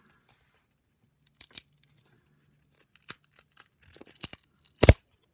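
Cardboard trading cards that are stuck together being peeled and torn apart: a run of short dry crackles and tearing snaps that grows busier toward the end, with one loud snap near the end.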